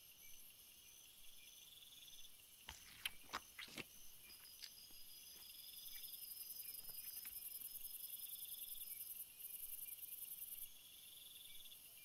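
Night rainforest insects calling in steady, rapidly repeated chirps, with a high insect hiss that grows louder about six seconds in and cuts off shortly before the end. A few sharp clicks come about three seconds in.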